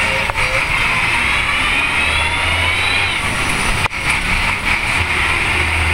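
Chicken bus (converted school bus) engine and road noise, heard from inside the rattling cabin as the bus drives. A thin whine rises in pitch around two to three seconds in while the engine note swells under load.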